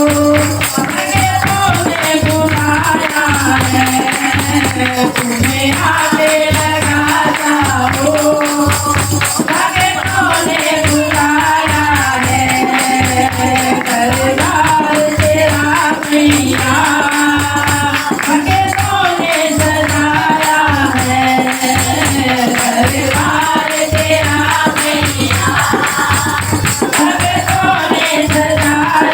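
Devotional bhajan music: a steady drum beat with tambourine jingles under a wavering melody line.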